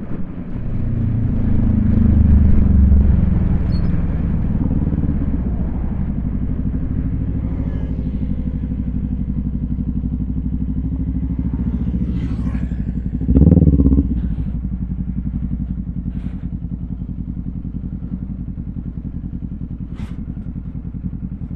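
Motorcycle engine running under way, heard from the bike itself: it pulls harder and rises in pitch for a couple of seconds near the start, then holds a steady cruise. A brief louder rush comes about two-thirds of the way through, and the engine eases off slowly toward the end.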